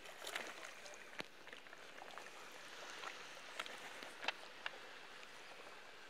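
A hand dipping and trailing in shallow sea water, making small irregular splashes and drips over a faint steady wash of water.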